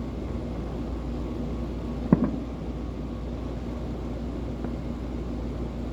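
A distant firework bang about two seconds in, with a fainter pop later, over a steady low rumble of outdoor background noise.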